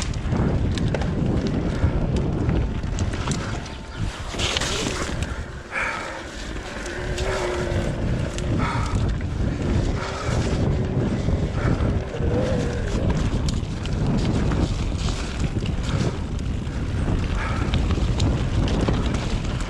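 Wind buffeting the microphone over the rumble and rattle of a mountain bike riding fast down a rough trail, with a short easing of the noise about five seconds in.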